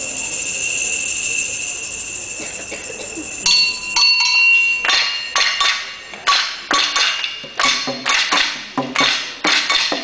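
Live stage percussion: high metallic ringing tones hold and fade, then about three and a half seconds in, sharp struck hits with ringing tails begin, quickening to about two a second.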